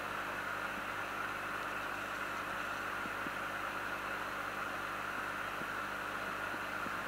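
Steady hiss and low hum of an aquarium air pump running a bubbler, unchanging throughout.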